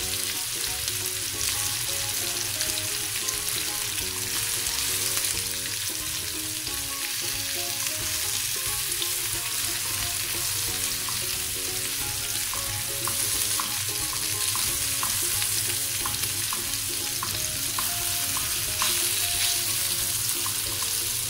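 Marinated chicken pieces sizzling steadily as they fry in butter in a non-stick pan, with light clicks of metal tongs against the pan as the pieces are turned over.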